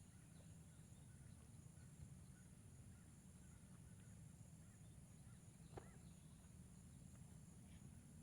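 Near silence: faint rural ambience with a steady high insect buzz, a few faint bird chirps, and a low rumble of wind on the microphone.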